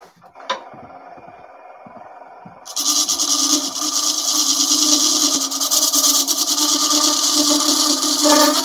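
Wooden bowl turning on a small JET benchtop lathe: a click near the start, the lathe running quietly, then about three seconds in a bowl gouge bites into the spinning wood and a loud, steady cutting noise takes over.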